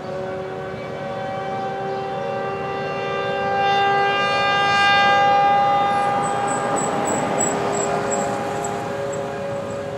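Federal Thunderbolt 1000 outdoor warning siren sounding a steady tone on test. It swells to its loudest about halfway through and then eases off as the rotating horn turns.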